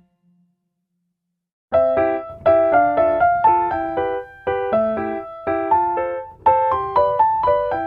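Background music: after a silent pause of under two seconds, a piano or keyboard tune starts, playing quick, evenly paced notes.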